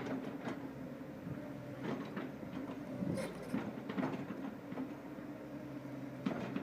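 Excavator running with a steady hum, with irregular clanks and knocks about half a dozen times.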